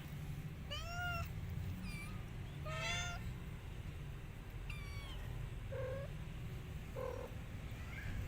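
Cats mewing: four high-pitched, arching mews in the first five seconds, then two shorter, lower mews, over a steady low hum.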